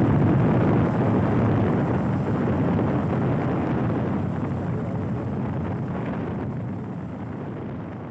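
Wind rushing over an unprotected phone microphone on a Bajaj Pulsar 150 motorcycle moving at around 40 km/h, with the running bike underneath, fading out steadily over the last few seconds.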